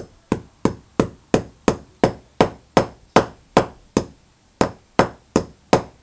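Claw hammer striking the end of a copper tube against a concrete floor, flattening it: a steady run of sharp metallic blows, about three a second, each with a short ring.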